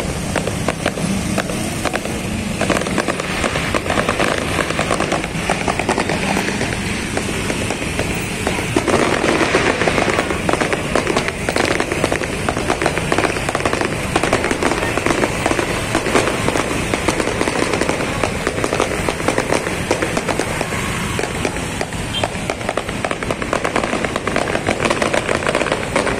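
Aerial fireworks going off in a dense, continuous crackle of bangs and pops, with crowd and motorbike street noise beneath.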